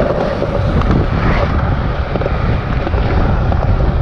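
Skateboard wheels rolling over smooth skatepark concrete: a steady low rumble, mixed with wind buffeting the microphone as the camera moves along.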